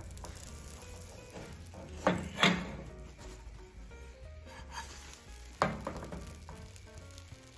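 A small nonstick frying pan and spatula clanking against a gas stove's grate as a pan-baked cake is flipped: two clanks about two seconds in and another about a second and a half before the end, over a faint steady hiss.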